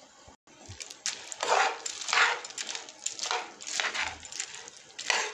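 A metal spoon stirring raw in-shell sunflower seeds in salted water in a heavy frying pan: a run of short scraping, swishing strokes, about six in a row.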